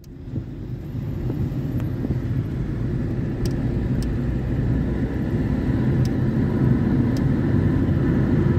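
Steady low rumble of a vehicle in motion, fading in over the first second, with a few faint clicks.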